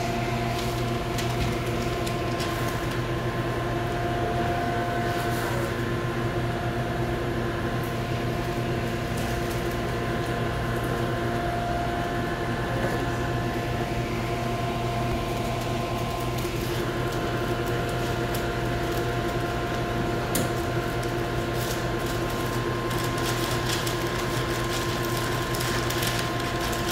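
Steady machine hum of a sandwich shop's equipment, several held tones droning without change, with scattered faint clicks and rustles.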